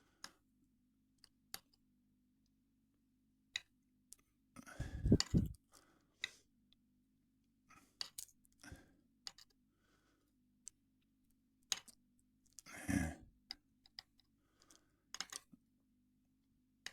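Small metal lock parts (pin tumblers, springs and lock body) clicking and tapping as they are handled, with scattered light clicks and two short louder clattering rattles, about five and about thirteen seconds in.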